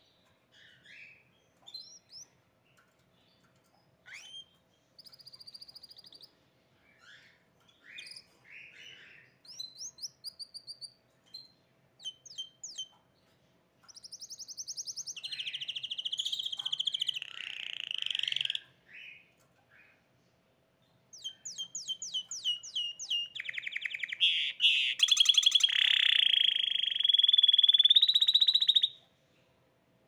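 Caged hybrid canary singing: scattered short chirps and whistled notes, then two long rapid rolling trills, about 14 to 18 seconds in and 21 to 29 seconds in, the second the loudest.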